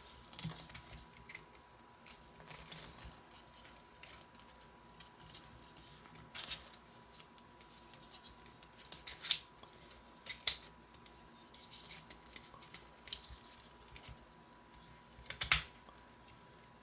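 Plastic puzzle pieces being turned and fitted by hand: scattered light clicks and handling rattles, the sharpest about six and a half, nine, ten and a half, thirteen and fifteen and a half seconds in.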